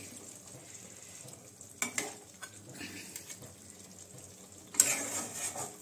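Flat metal spatula scraping and knocking against a metal kadai as chicken curry with potatoes is stirred and cooked down, over a faint steady sizzle. There are a couple of sharp knocks about two seconds in, and a louder scrape and clatter near the end.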